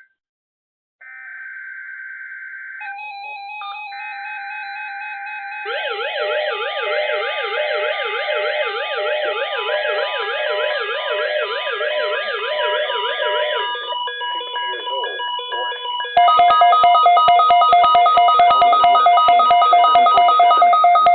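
Several NOAA weather radios receiving an EAS alert at once. Short data bursts of the SAME header are followed by overlapping electronic alarm tones: a steady tone, then from about six seconds in a siren-like tone sweeping up and down, and from about sixteen seconds in a louder steady two-tone beeping alarm.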